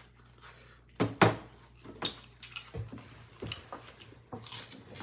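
Mealtime sounds of eating by hand: chewing and crunching of raw vegetables, with several short clicks and knocks of dishes on the table, the loudest a little over a second in.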